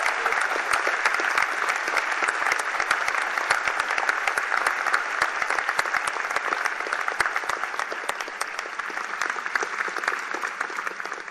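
Large crowd applauding: a dense, steady mass of clapping from many hands that dies away near the end.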